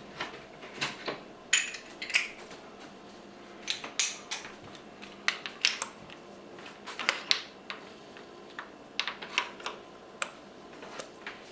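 Ratchet and spark plug socket clicking in short bursts with metal clinks as spark plug number 1 is loosened and removed from a Nissan KA24DE engine.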